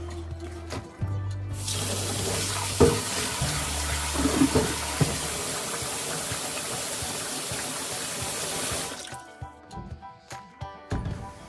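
Kitchen tap running into a plastic bowl of glutinous rice in a stainless steel sink as the rice is rinsed, with a few knocks of the bowl; the water stops near the end, leaving faint background music.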